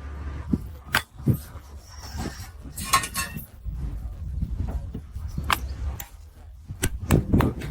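Metal parts and hand tools clinking and knocking during motor repair work: scattered sharp clicks, with a quick cluster near the end, over a low rumble.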